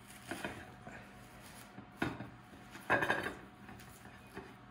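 Cheesecloth being pulled and peeled off a dry-aged bison rib roast: soft rustling and rubbing of cloth on meat, with a few short scuffs and knocks as the roast is handled, the loudest about three seconds in.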